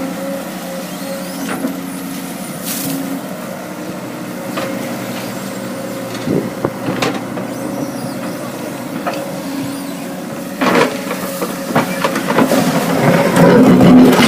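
Caterpillar excavator's diesel engine running steadily while it digs, with scattered knocks and clanks. It grows louder and busier near the end.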